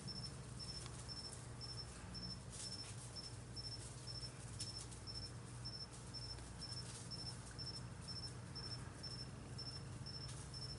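A cricket chirping steadily, short high chirps about two to three a second, over a low steady hum.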